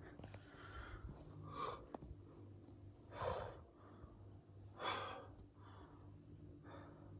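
A person breathing heavily in short gasps, the two loudest breaths about three and five seconds in, over a faint steady low hum.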